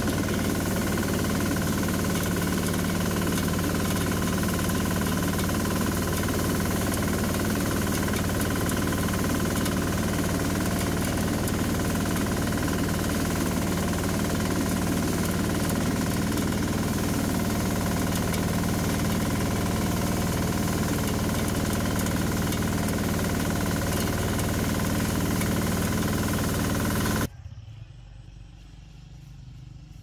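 Compact rice combine harvester running steadily as it cuts ripe rice, heard from the operator's seat: a loud, even engine and machinery drone. It cuts off abruptly a few seconds before the end, leaving a much quieter low hum.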